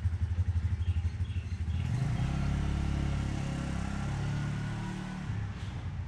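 An engine running, throbbing low for the first two seconds, then its pitch shifting up and down for a few seconds before easing off near the end.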